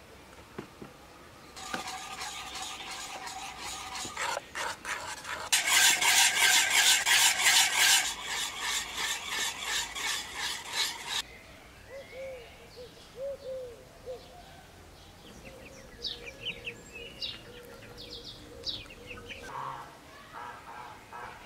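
A wire whisk beating flour into a yogurt mixture for dovğa in a metal pot: quick, rhythmic scraping strokes against the metal, loudest a few seconds in, stopping about halfway. Birds chirp faintly afterwards.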